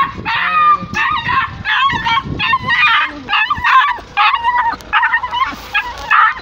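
Pit bull yelping in a rapid run of short, high cries, several a second, after being struck by a car that ran over its foot and chest.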